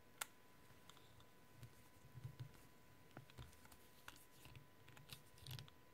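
Faint, scattered clicks and soft knocks from a small screwdriver tightening a screw in the metal frame of a cassette deck mechanism.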